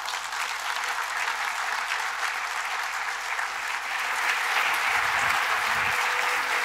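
Audience applauding, a dense steady clatter of many hands clapping that grows slightly louder past the middle.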